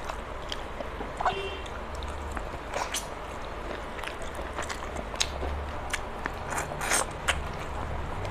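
Close-up eating sounds: fingers mixing rice and chicken curry on a steel plate with wet squishing, and chewing. A few short sharp clicks and smacks stand out above a steady background hiss.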